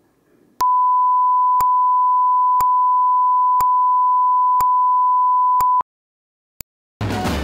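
Steady single-pitch electronic test tone, as laid with colour bars on a tape or broadcast leader, held for about five seconds and then cut off. A short click sounds once a second throughout. Music with brass starts just before the end.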